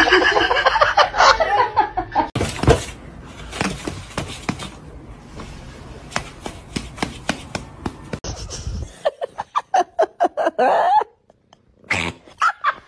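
People laughing in bursts, with scattered clicks and knocks between the laughs.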